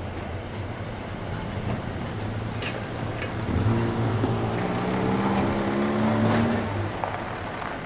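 Vintage electric tram approaching slowly along the rails, with a steady low hum and a few light clicks. A droning whine from its drive comes in about three and a half seconds in, rises a little, and cuts off near the end.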